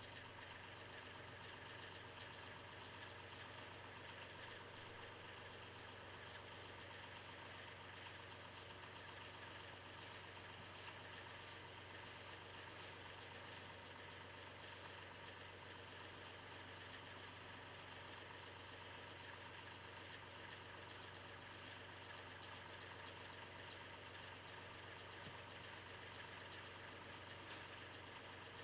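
New Holland TN75DA tractor's diesel engine idling faintly and steadily. A few short rustles of plastic net wrap come about ten seconds in, as it is pulled off a round hay bale.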